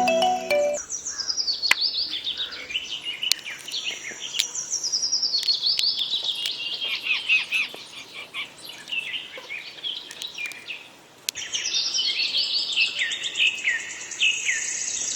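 Birds chirping in a dense chorus of rapid high notes, many runs stepping down in pitch, with a brief lull about eleven seconds in before they start again.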